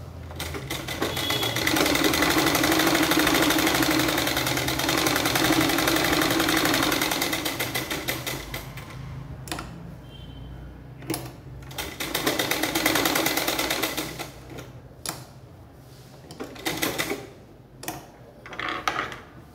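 Sewing machine stitching shirt fabric in runs: one long run of about eight seconds, a pause, a shorter run, then a few brief spurts near the end.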